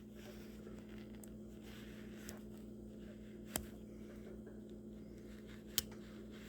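Rough Ryder Pipe Doctor slipjoint folding knife's blade snapping on its strong backspring (its "walk and talk"): two sharp clicks about two seconds apart, with a couple of fainter ones before them, over a faint steady hum.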